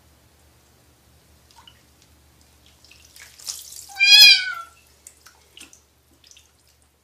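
A kitten gives one short, high, wavering meow about four seconds in. It is preceded by a light splash of water, with a few faint drips around it.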